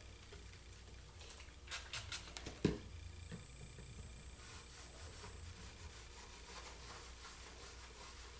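Rag wiping a car headlight lens coated with insect-repellent spray: faint rubbing, with a short run of scuffs and one thump about two and a half seconds in.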